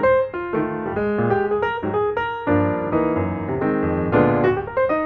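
Background music led by a keyboard, quick notes in a steady flow.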